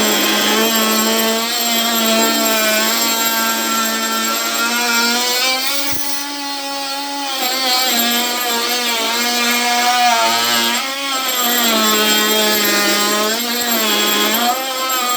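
Ryobi brushed oscillating multi-tool with a wood blade cutting through a 2x4: a steady, high buzz whose pitch sags repeatedly as the blade loads up in the wood. The cut eases off briefly about six seconds in and again around eleven seconds in.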